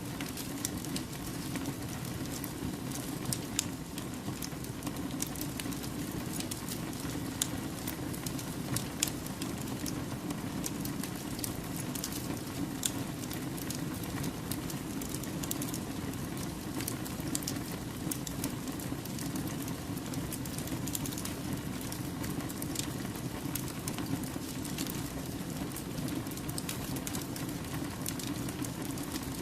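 Wood campfire burning: a steady low rush of flame with frequent sharp crackles and pops from the burning logs, coming at irregular moments.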